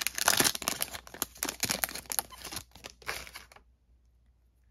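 Foil wrapper of a Panini Prizm football card pack crinkling and tearing as it is opened by hand, stopping suddenly about three and a half seconds in.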